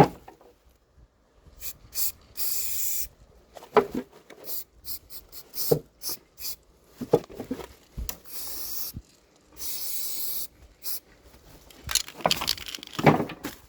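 Aerosol spray paint can hissing in several short bursts of about a second or less, with knocks and clicks between them.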